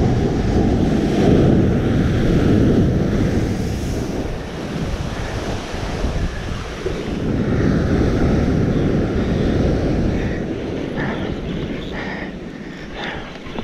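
Wind buffeting the microphone over waves washing up the beach. The wind eases near the end, leaving a few short scuffs.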